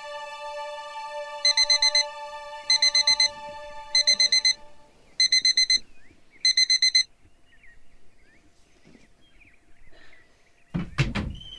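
Digital alarm clock beeping: five short bursts of rapid high beeps about a second and a quarter apart, stopping about seven seconds in, while soft background music fades out. Near the end, a single heavy thud.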